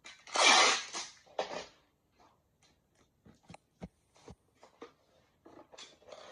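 Clear packing tape pulled off a handheld tape dispenser in one loud ripping pull, followed by a shorter second rip. Then hands press and smooth the tape onto a cardboard box with scattered light taps.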